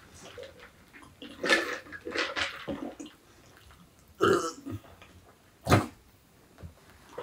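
A person burping with a mouth full of food during a speed-eating challenge: several short, separate burps and mouth noises, the sharpest and deepest about six seconds in.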